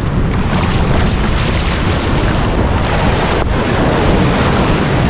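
Surf washing in and breaking over a sandy beach shallows, with strong wind buffeting the microphone in a heavy, steady rumble.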